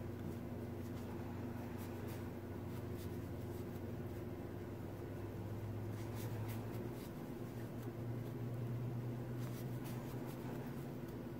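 Faint scratching and rustling of a crochet hook working yarn, with scattered light clicks, over a steady low hum.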